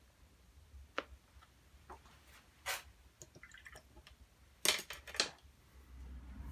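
Scattered light clicks and taps of a watercolour brush against a water pot and palette, the loudest a quick cluster about five seconds in, with faint watery sounds as the brush is rinsed between colours.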